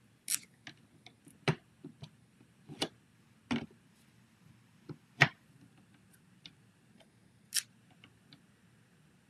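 Irregular sharp clicks and taps of paper-craft stamping: a photopolymer stamp being inked, pressed down and lifted with a hinged stamping tool, about six louder knocks among lighter ticks.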